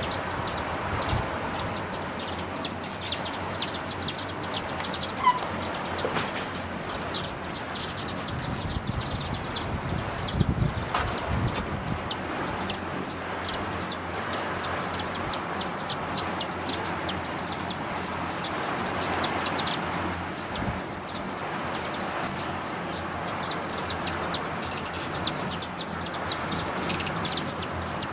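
Many hummingbirds at feeders: their wings make a steady high-pitched buzzing trill, with scattered short chips and chirps from the birds over it.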